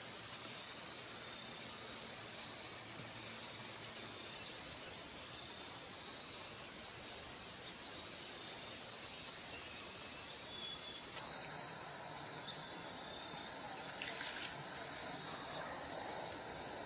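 Insects chirping in short repeated high notes over a steady outdoor hiss. The background changes abruptly about eleven seconds in, and a brief sharp sound comes a few seconds later.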